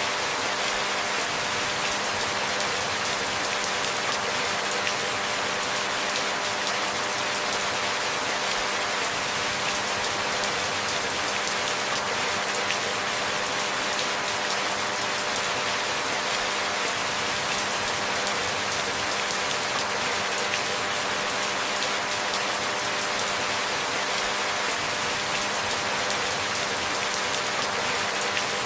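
Steady rainfall: an even, unchanging hiss of rain pattering on surfaces.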